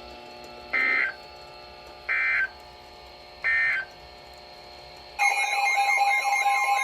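Three short bursts of NOAA Weather Radio SAME data tones, about 1.3 s apart, over a faint steady hum: the end-of-message signal closing a tornado warning broadcast. About five seconds in, a loud warbling electronic alert tone starts.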